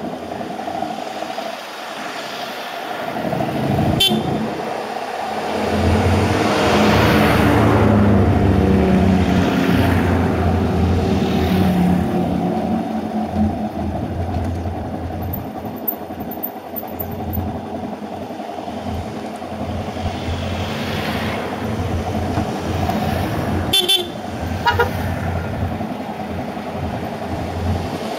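Motorcycle engine running as the bike pulls away and rides, louder and rising in pitch from about six seconds in, then settling to a steady run. Short horn toots sound about four seconds in and again a couple of times near the end.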